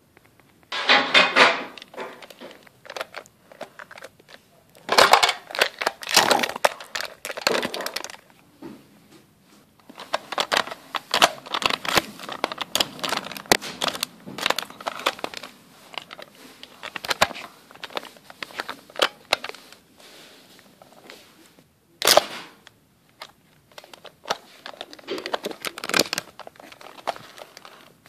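Plastic toys being handled and moved about on a fabric blanket: irregular bursts of rustling, crinkling and clicking, with one sharp click late on.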